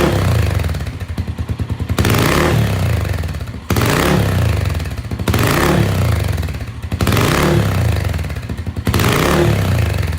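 Suzuki Grasstracker's 250 cc single-cylinder four-stroke engine through an aftermarket silencer, revved in short throttle blips about every two seconds, each falling back to a pulsing idle.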